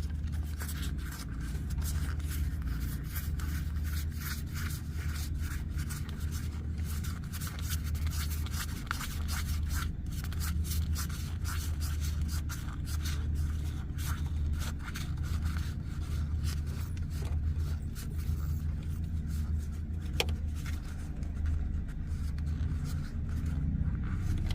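Trading-card deck being unpacked and its cards handled: dense scraping, rubbing and small clicks of cards and packaging, with one sharper click about 20 seconds in. Under it runs a steady low hum.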